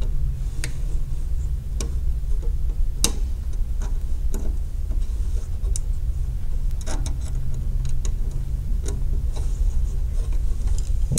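Scattered small clicks and taps of a tool and wire ends being worked into a plastic terminal block, over a steady low hum.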